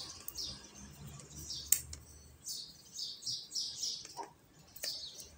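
Small birds chirping in the background, a quick run of short, high, downward chirps repeating several times a second, with a sharp click about a second and a half in and a fainter one near the end.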